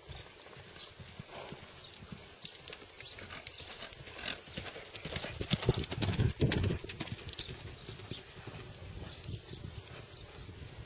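Hoofbeats of a ridden horse moving at a trot or canter on a sand arena footing, a run of quick thuds and clicks that grows loudest about halfway through as the horse passes close.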